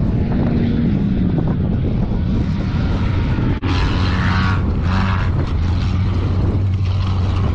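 Engines of several old cars racing on a dirt track, a steady low drone that swells in places, with a brief break about three and a half seconds in.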